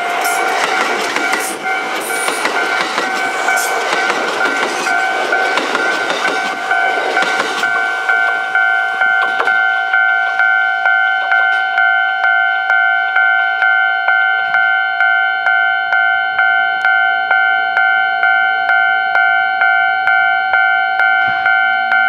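Kintetsu 2610-series train running past close by, its loud rushing noise ending about seven and a half seconds in. Under it and on after it, a level-crossing warning bell keeps ringing a steady two-tone ding, about one and a half strokes a second.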